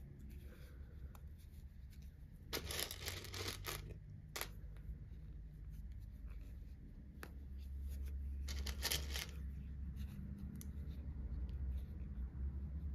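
Plastic safety eyes being fitted into a crocheted amigurumi head: two scratchy rasping bursts, each about a second long, and a few sharp clicks as the backing washers are pressed down onto the eye posts through the yarn.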